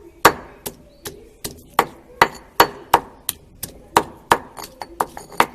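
Repeated pounding strikes, about three a second and uneven in force, as material is crushed to make colour.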